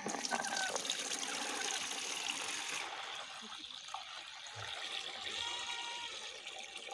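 Freshly squeezed lemon juice pouring in a steady stream from an aluminium pot into a plastic bucket, splashing into the liquid below. The pour is a little softer after about three seconds.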